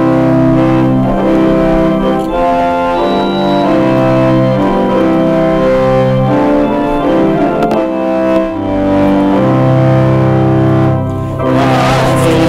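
Church organ playing the introduction to a hymn in held chords that change every second or so, with a short break near the end.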